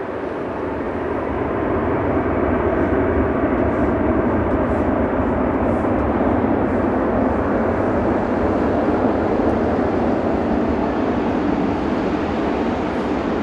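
Cathay Pacific Boeing 777-300's twin jet engines at takeoff power on the departure roll. A loud, steady rumble builds over the first couple of seconds and holds, easing slightly near the end.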